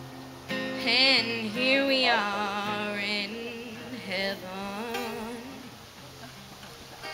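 A woman singing a slow, wavering vocal line with vibrato over strummed acoustic guitar, amplified through PA speakers. The voice fades out near the end, leaving the guitar alone.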